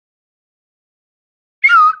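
Silence, then near the end one short, high whistle-like call with a wavering pitch.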